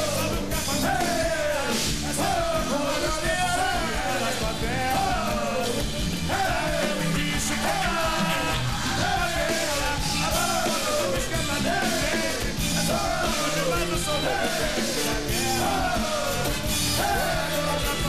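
Live band music: drums and Brazilian hand percussion such as surdo and pandeiro, a horn section and singing, with a short sliding figure repeated about once a second.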